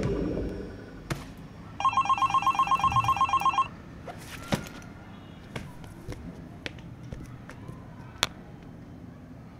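Mobile phone ringing with an incoming call: a loud, rapid trilling ring of about nine pulses a second, lasting nearly two seconds. A few sharp little clicks follow.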